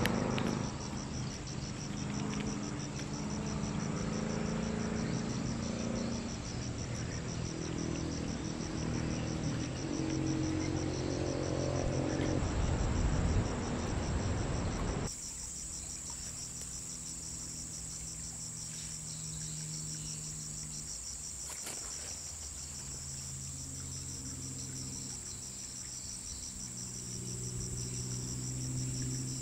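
Crickets chirping in a steady, fast pulsing trill, over lower held tones that shift in pitch in steps. About halfway through the sound changes abruptly.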